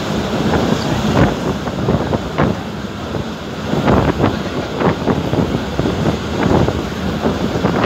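Abu Qir suburban train running, heard from inside a carriage: a steady rumble broken by irregular clatters and knocks from the wheels and car body, with wind noise over it.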